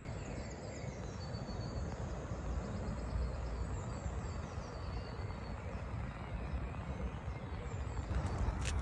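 Faint birdsong, short high chirps, over a steady low outdoor rumble, with one sharp click near the end.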